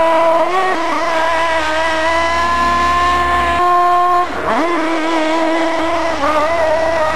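Small nitro (glow-fuel) engine of a CEN Racing GST RC monster truck running at high revs. About four seconds in, the pitch dips sharply and climbs back as the throttle is let off and opened again. Near the end the pitch wavers up and down.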